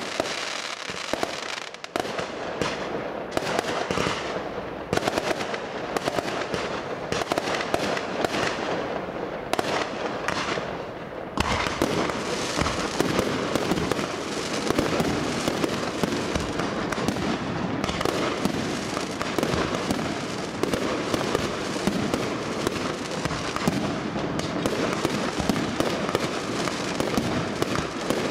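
Fireworks display: a continuous barrage of bangs and crackling, with gaps between volleys at first, becoming a dense, unbroken crackle about eleven seconds in.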